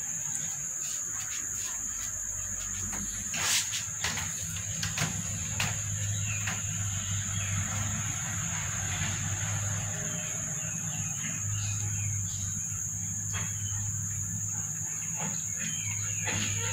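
A steady, high-pitched insect drone, cricket-like, with a few knocks about three to six seconds in and some faint chirps later on.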